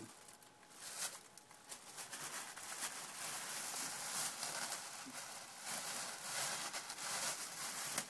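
A thin plastic bag rustling and crinkling in irregular bursts as it is handled and pressed around the door of a wood-burning stove.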